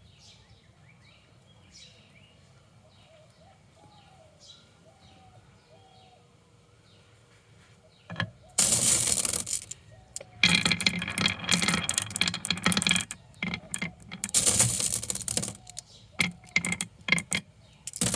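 Faint bird chirps for the first half, then marbles rolling and clattering down a wooden marble run: long loud rattling runs full of rapid clicks, broken by short pauses.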